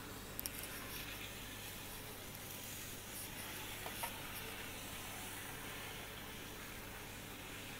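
Faint steady hiss with a low hum, broken by a few small clicks about half a second in and around four seconds in.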